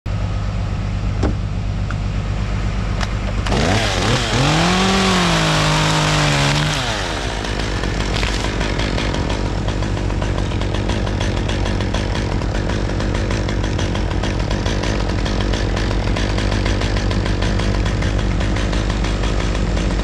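Top-handle chainsaw running at idle, revved up once for about three seconds a few seconds in: its pitch rises, eases back a little, then drops to idle again.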